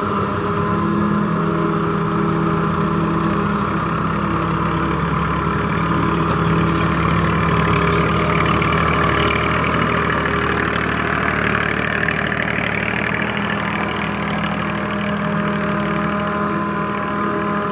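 Claas Jaguar forage harvester at work in maize, its diesel engine running steadily under load with a constant machine hum. A rushing noise swells around the middle and then eases off.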